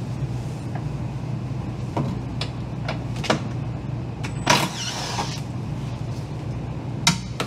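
Cordless drill run in short bursts on the freezer-frame bolts while a wrench holds the nuts, with sharp metallic clicks and knocks of the wrench and bolt, the loudest burst about halfway through. A steady low hum runs underneath.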